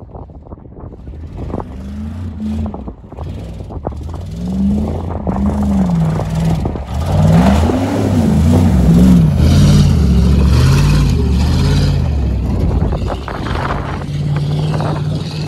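GMC Sierra pickup's engine revving up and down again and again as the truck ploughs through mud and snow, with a rush of spraying mud and slush at its loudest in the middle. Near the end the engine settles into a steadier note as the truck drives off.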